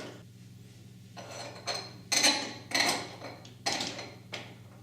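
Metal door-handle hardware clinking and knocking as a handle and its spring are fitted back onto the spindle of a uPVC door: a run of separate sharp clicks and taps, the loudest a little past two seconds in.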